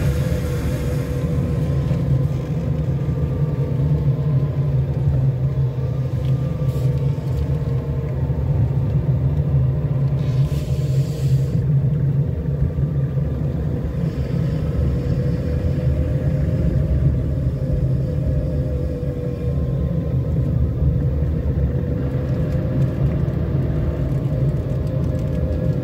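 A car driving slowly, its engine and tyres making a steady low rumble with a hum that drifts slightly up and down in pitch.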